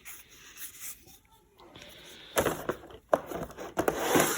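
Clicks and knocks of an Umarex Glock 19 replica CO2 BB pistol being handled, starting about two seconds in with several sharp clicks over a rustling noise.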